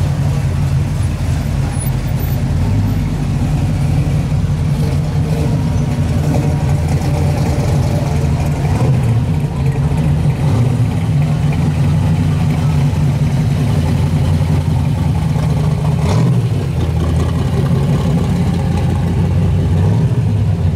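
Classic muscle car engines running at low speed as the cars cruise past one after another: a deep, steady exhaust rumble.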